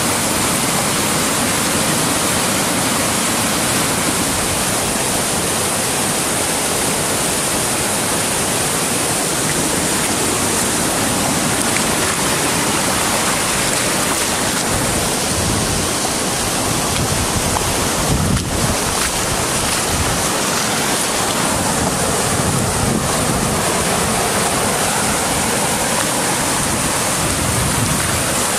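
Storm-swollen stream in flood rushing over rocks: loud, steady churning of fast white water.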